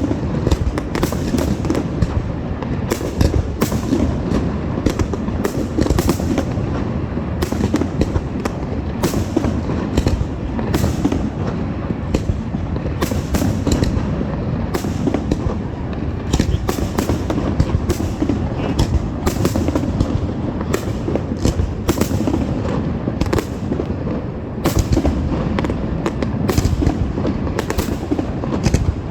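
Fireworks going off in a continuous barrage: sharp bangs and crackling reports, several a second, over a steady low rumble of booms, with no break.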